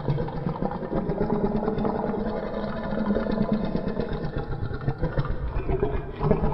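Reconstructed Ceratosaurus vocalization: a long, low, rapidly pulsing rumble that runs without a break and swells briefly near the end.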